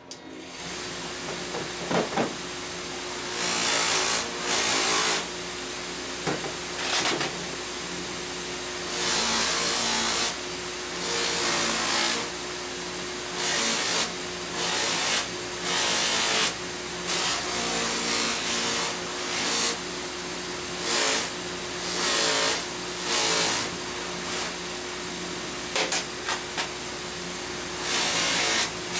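Bench grinder with a cloth buffing wheel switched on, its motor then running steadily. A small metal part is pressed against the spinning wheel again and again, each touch a short rushing hiss of buffing, a dozen or so times.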